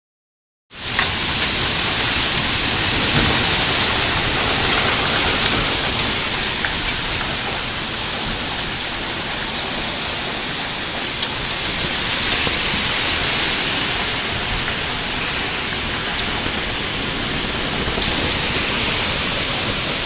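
Heavy rain in a wind storm: a steady rushing hiss of rain and wind, with scattered drops ticking close by. It starts about a second in.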